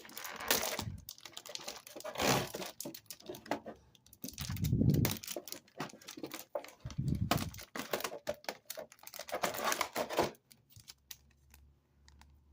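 Action-figure packaging of cardboard and plastic being handled and opened: irregular clicks, rustles and crinkles in several bursts.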